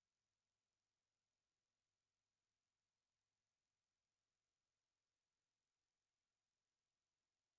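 Synthetic crow-repellent signal: a thin, very high-pitched electronic tone near the top of hearing, steady with a rapid flutter and close to inaudible. It is built from crow alarm calls sped up about three times and shifted into their overtone range, meant to make crows flee.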